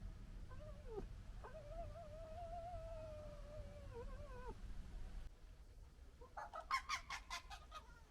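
Red fox making a long, wavering whine that lasts about four seconds. Near the end comes a quick burst of gekkering, a rattling chatter of about eight sharp pulses.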